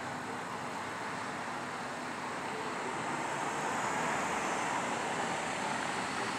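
Steady road-traffic noise: a car's engine and tyres, swelling slightly from about three seconds in as it draws nearer.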